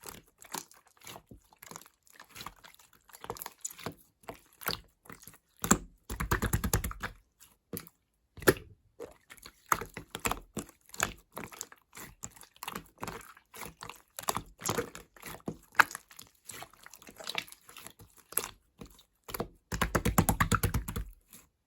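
Slime being squished and poked by hand, a run of small sticky clicks and pops, with two louder stretches of rapid crackling about six seconds in and near the end.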